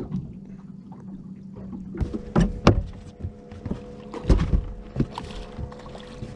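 Steady motor hum on a fishing boat, with a run of hollow knocks and thumps against the boat from about two seconds in.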